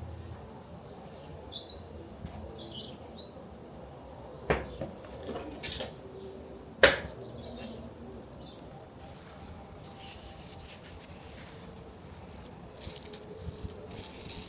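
A few short bird chirps, then two sharp knocks about two seconds apart, the second the loudest, with light rustling near the end. These are handling sounds from repotting plants.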